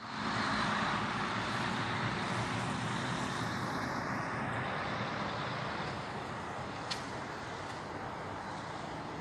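A vehicle or machine engine running steadily under a loud wash of noise, with one sharp click about seven seconds in.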